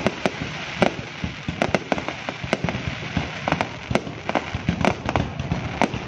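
Aerial fireworks going off overhead in a rapid, irregular run of sharp bangs, two or three a second, over a steady hiss between them.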